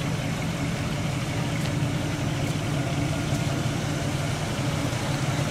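1984 Buick Regal Limited's engine idling steadily, an even low hum with no revving.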